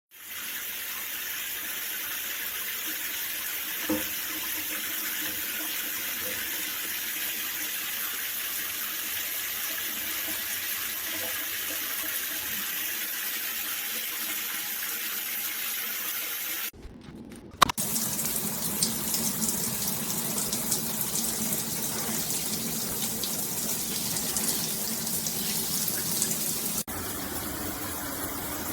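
Water spraying steadily from a Delta In2ition dual shower head, a steady hiss. The spray sound drops out and changes abruptly, with a click, about 17 seconds in, and shifts again near the end.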